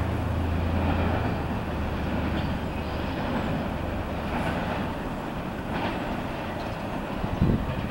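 Freight train of double-stack container cars rolling past, with steady wheel-on-rail rumble. A low drone fades out after about three seconds, and a couple of low thumps come near the end.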